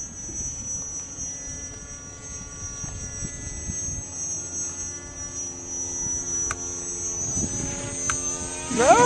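Small battery-powered RC plane's motor and propeller droning overhead, a steady buzz with a thin high whine that slowly grows louder. Near the end the sound swells sharply and climbs in pitch as the plane dives toward the ground.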